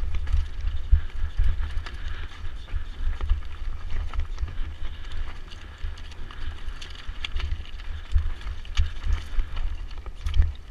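Mountain bike descending a rocky trail at speed: tyres crunching over loose stones and the bike rattling with many irregular clicks, over a continuous low wind rumble on the camera's microphone.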